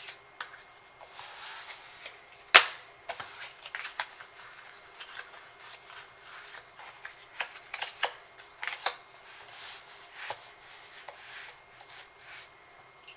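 Pokémon trading cards being handled and slid past one another: short papery swishes and frequent light clicks and taps, with one sharp, loud snap about two and a half seconds in.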